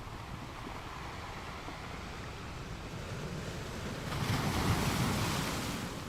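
Waves washing on a beach: a steady wash of surf, then a louder wave breaks and hisses up the shore from about four seconds in, easing off near the end.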